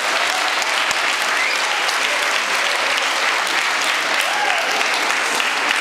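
An audience of children and adults applauding steadily, with voices heard among the clapping.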